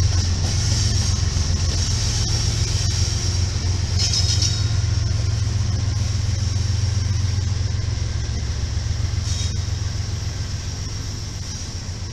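Several diesel-electric freight locomotives passing in a lash-up, their engines running with a steady low rumble that eases off near the end. There is a brief high squeal about four seconds in.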